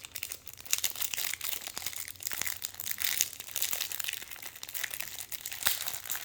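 Plastic packaging crinkling and crackling as it is handled and pried open by hand, a dense run of small sharp crackles and clicks.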